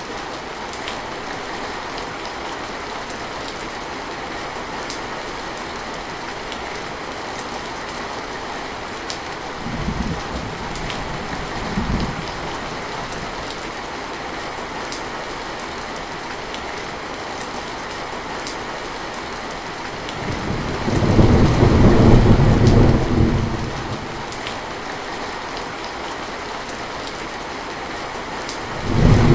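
Heavy rain falling in a steady hiss, with a few drops ticking out of it. Thunder rolls in as two short low rumbles about a third of the way in, then a longer, louder rumble about two-thirds of the way through.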